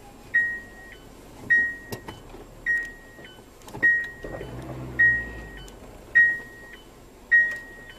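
A repeating electronic beep, seven times at a little over one a second. Each is a steady high tone about half a second long that ends with a short blip at a lower pitch.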